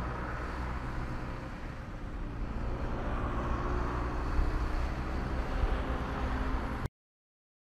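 Road traffic: buses and trucks driving past, engines running with tyre and road noise, growing slightly louder as a bus approaches. The sound cuts off suddenly near the end.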